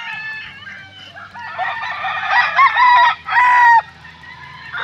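Gamecock roosters crowing, several crows overlapping at different pitches, the loudest coming about two to four seconds in.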